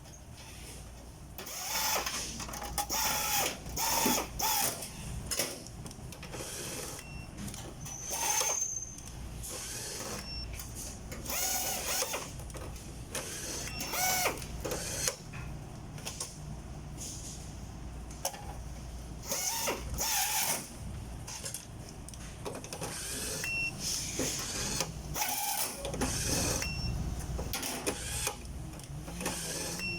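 Factory-floor work sounds: irregular clanks and clatter of metal parts being handled, some with a short ringing, over a steady low machinery hum.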